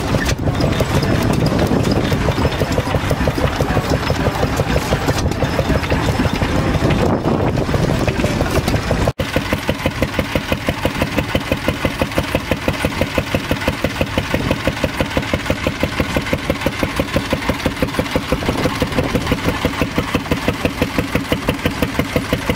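Vintage single-cylinder stationary engines running: first a 1909 Japy, then, after a break about nine seconds in, a grey stationary engine driving a flat belt, its exhaust beating fast and even.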